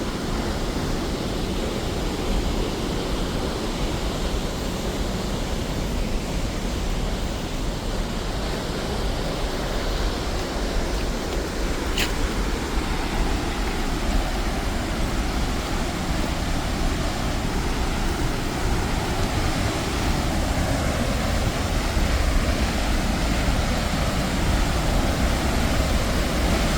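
Waterfall rushing as a steady wash of water noise, slowly growing louder, heavy in the low end on a phone's microphone. A single sharp click about twelve seconds in.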